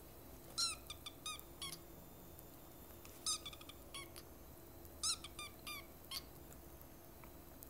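Young tabby kitten mewing: short, high-pitched, squeaky mews in three quick clusters of several calls each.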